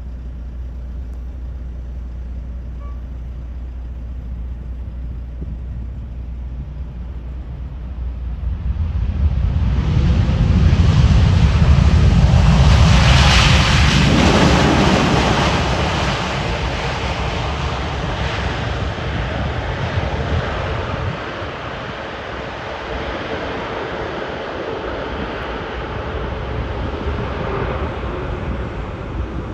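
Jet airliner passing close on its landing approach: the engine noise swells over a few seconds, peaks about halfway through, then fades slowly, over steady wind noise on the microphone.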